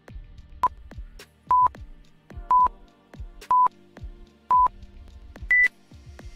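Quiz countdown timer beeping: five short beeps a second apart, then a higher-pitched final beep as it reaches zero. Quiet background music plays under it.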